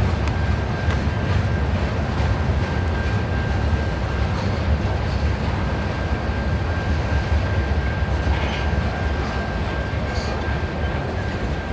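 Freight train of tank cars and autorack cars rolling past at a steady speed: a continuous low rumble of steel wheels on rail, with a thin steady high tone over it.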